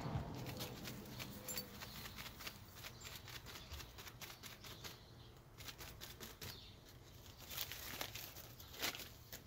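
A crumpled sheet crinkling as it is dabbed and pressed onto wet spray paint to texture it: a scatter of soft crackles and taps, busiest at the start and again near the end.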